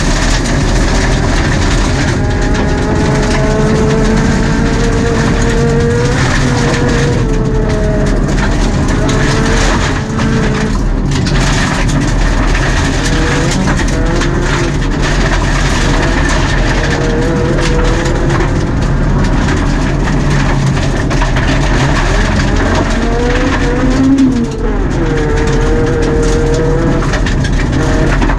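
Mitsubishi Mirage Cyborg RS rally car's MIVEC four-cylinder engine at full effort, heard from inside the cabin, its pitch climbing through the revs and dropping at each gear change. Under it runs a constant gravel rush from the tyres and stones striking the car, with a single knock about 24 seconds in.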